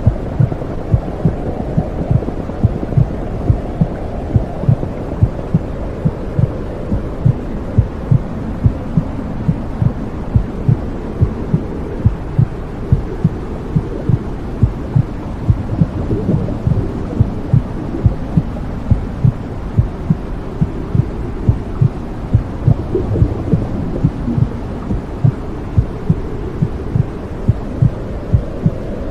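Womb sound for soothing a baby: a steady, regular heartbeat over a muffled low whooshing rush.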